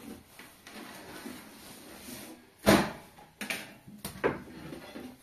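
A few sharp knocks and clatter, the loudest about two and a half seconds in, followed by three or four lighter ones.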